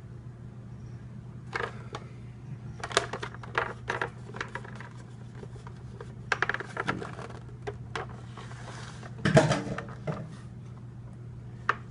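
Handling noises from a plastic table fan being moved and turned over: scattered light clicks, taps and knocks, with a louder clatter about nine seconds in, over a steady low hum.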